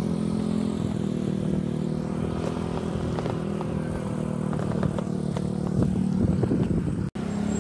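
A small engine running steadily, with light clattering and rattles over it; the sound cuts out for an instant near the end.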